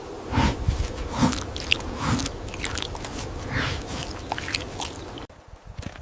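An animal chewing food, with a run of crunchy bites about once a second that breaks off suddenly near the end.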